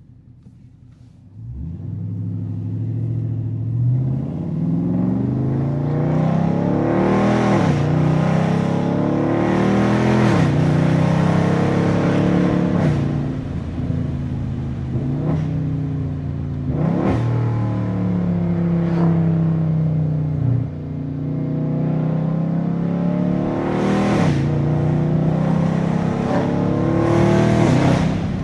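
Catless, tuned 392 (6.4-litre) HEMI V8 of a Dodge Scat Pack under hard acceleration. The engine note climbs, then drops sharply at each upshift, over and over through the gears. Each shift lands with a brief crack, and the first second or so is quieter before the throttle opens.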